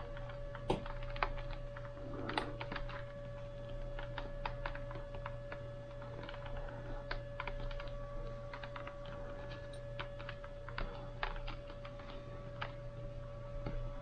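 Small irregular clicks and taps of fingers pressing and tucking a camera microphone wire into the plastic wire channel along a motorcycle helmet's lower edge. A steady hum runs underneath.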